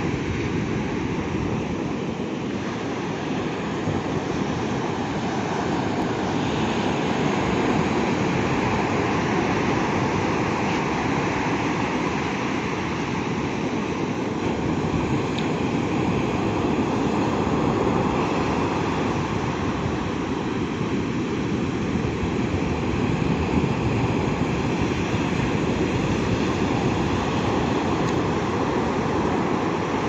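Sea surf breaking on a sandy beach: a steady rush of waves and foam washing up the sand, swelling a little now and then as bigger breakers come in.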